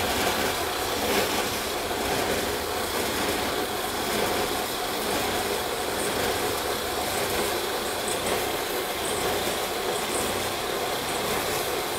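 Bench belt sander running steadily, a dyed tagua nut piece held against its sanding belt so that part of the dye is sanded off to give the mottled Tairona finish.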